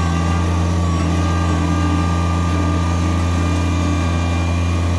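Kubota BX2380 compact tractor's three-cylinder diesel engine running at a steady speed.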